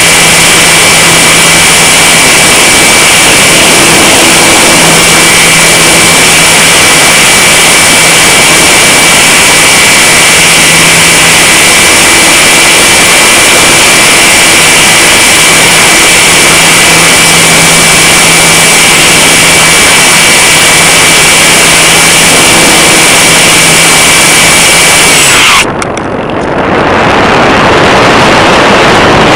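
Onboard sound of an electric RC glider's motor and propeller running under power: a loud steady high whine and low hum under heavy wind rush on the onboard microphone. Near the end the motor cuts off suddenly and only the rush of air remains as the glider glides.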